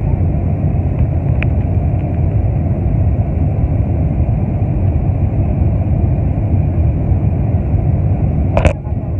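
Steady engine and airflow rumble inside the cabin of a Boeing 747-400 climbing out after takeoff, heard from a window seat by the wing. A single short knock sounds near the end.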